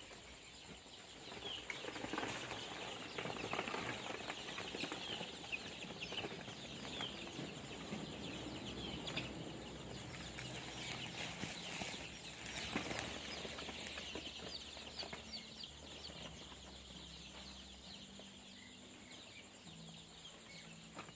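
A brood of many young native chicks peeping at once, a dense chatter of short high chirps that is thickest over the first dozen seconds and thins out toward the end.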